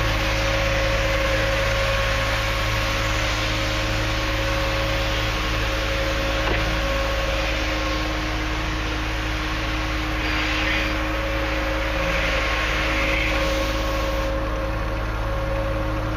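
Steady mechanical hum of an engine running at a constant speed, with an even hiss over it.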